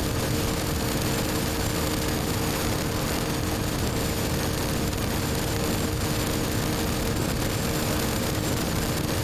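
BMW R1250GS Adventure's boxer-twin engine running through an Akrapovic slip-on exhaust at a steady speed, mixed with a steady rush of wind noise; the pitch holds even with no revving or shifting.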